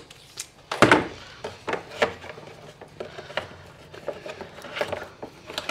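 Battery cables being handled and worked into plastic cable trunking: a series of knocks and clicks with rubbing and rustling between them, the loudest knock about a second in.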